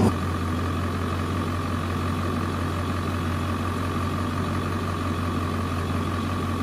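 A vehicle's engine running steadily: a constant low drone with a faint, steady high tone above it.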